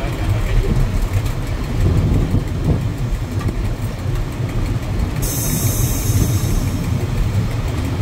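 Diesel passenger train running along the track: a steady low rumble. A high hiss joins about five seconds in.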